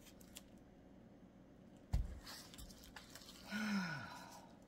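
Raw chicken breasts being handled in a plastic meat tray on a cutting board: a dull thump about two seconds in, then light rustling. Near the end comes a short sigh from a woman, falling in pitch.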